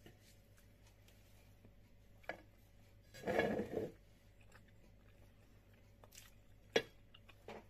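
Knife and fork clicking against a plate while eating pancakes, a few separate sharp clicks, with a louder, half-second noisy sound a little over three seconds in.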